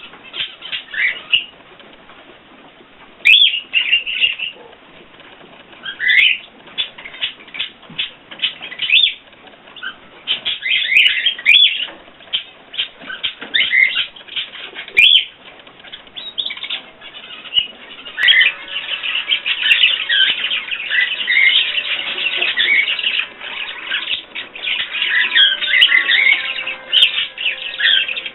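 Small pet birds chirping and fluttering their wings, with scattered short chirps and rustles at first and denser, near-continuous chirping in the last third.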